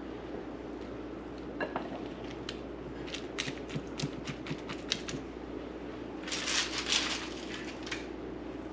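Tortilla chips crackling and crunching as handfuls are added and packed down into the nacho stack: scattered sharp crunches, with a denser burst of crackling about six seconds in.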